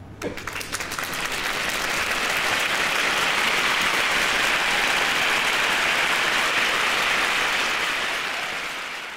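Crowd applause, beginning with a few separate claps and swelling within a couple of seconds into dense, steady clapping that fades away near the end.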